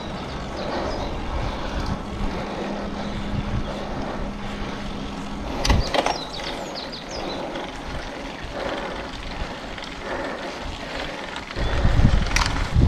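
Wind and road noise while cycling, with a steady hum for the first five seconds and a sharp click just under six seconds in. Wind buffets the microphone near the end.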